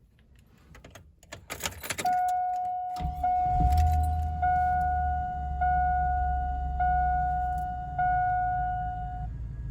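Keys jangling and clicking into the ignition of a 2000 GMC Sierra pickup. Then a warning chime dings steadily, about once every 1.2 seconds, six times. About three seconds in, the truck's engine cranks, catches and settles into a steady idle under the chimes.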